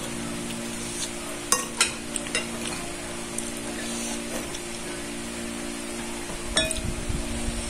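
Eating rice by hand from a ceramic plate: fingers scrape and pick at the food, with a few short clicks against the plate, over a steady background hum and hiss.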